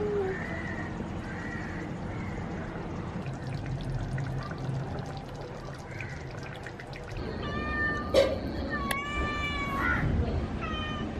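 A cat meowing: several drawn-out calls one after another through the second half, some bending up or down in pitch, with a sharp click about eight seconds in. Before the calls, only a low steady hum.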